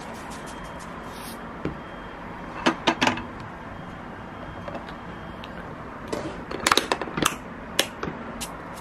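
Hard lunch box with metal corner fittings being handled and closed: sharp clicks and knocks of the lid and fittings. Three come close together about three seconds in, and a quick run of clicks follows between about six and eight seconds.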